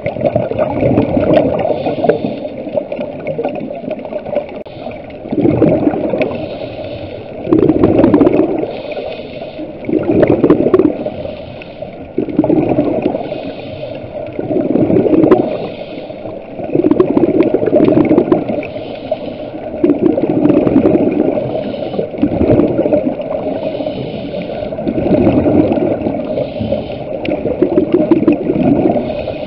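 Scuba diver breathing through a regulator underwater: exhaled bubbles gurgling in regular swells about every two and a half seconds, with a fainter hiss between them.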